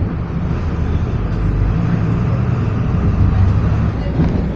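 Volksbus 17-230 city bus's diesel engine running steadily with road rumble, heard from inside the passenger cabin.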